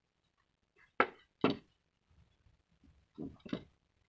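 Short, sharp knocks of the small wooden frame being handled and set down on a hard work surface: a pair about a second in, half a second apart, and another close pair near the end.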